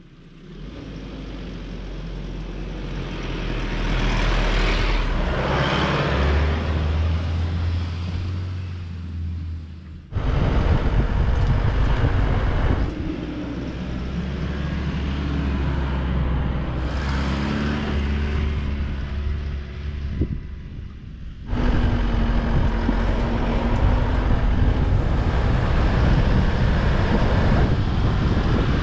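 Isuzu D-Max ute's diesel engine running with tyre noise as it drives along dirt and sand tracks toward and past the camera, in three clips. The sound gets louder over the first few seconds as the ute approaches and changes abruptly twice, about ten and twenty-one seconds in, as one clip cuts to the next.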